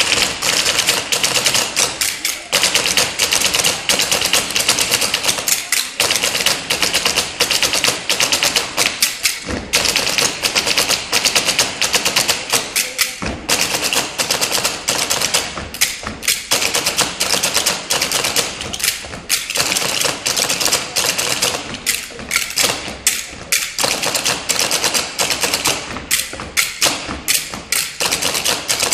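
Table percussion by a group of performers: a fast, dense stream of taps and knocks on a tabletop, broken by a few short pauses.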